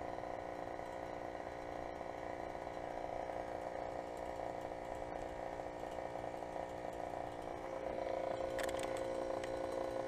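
2015 Ducane 2.5-ton heat pump outdoor unit running in heat mode with a steady mechanical hum of several even tones. The owner suspects the iced-up unit is in a defrost cycle but can't tell.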